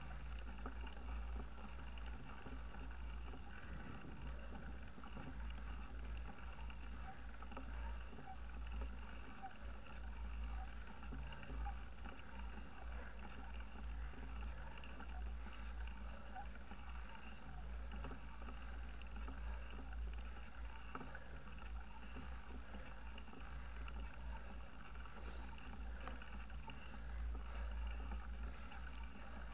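Steady low rumble of wind buffeting the microphone of a camera riding on a mountain bike, over the even hiss of tyres rolling on tarmac.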